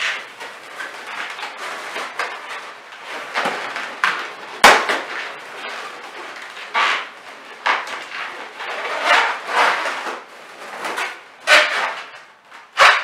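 Inflated latex balloons being handled, rubbing and squeaking against each other in irregular bursts as a twisting balloon is tied among them, with two sharp knocks, one about a third of the way in and one near the end.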